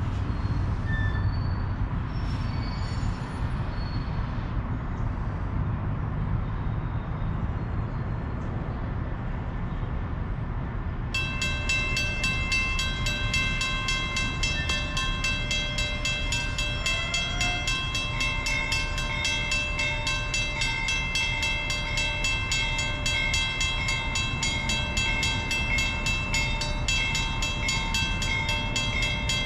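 Railroad grade crossing bell starting abruptly about a third of the way in and ringing rapidly and steadily as the crossing signals activate for an approaching train, over a low rumble.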